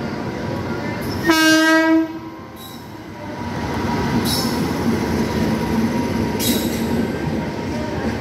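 An express train's electric locomotive sounds one short, loud horn blast about a second in, then the train rumbles past as its coaches roll by close up, with two brief high wheel squeals as it enters the platform.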